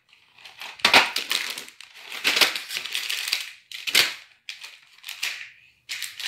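Snack packets crinkling and knocking against cardboard as they are dropped one after another into a cardboard box, with sharper hits about a second in and again near four seconds.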